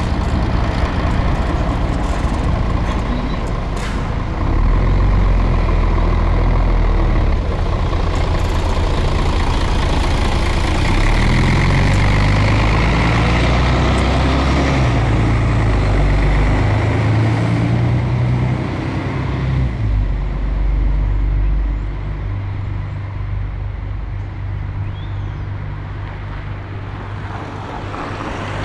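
A heavy road vehicle's engine running close by, low and loud. Its note changes in steps partway through, and it fades off after about twenty seconds, leaving a lower street hum.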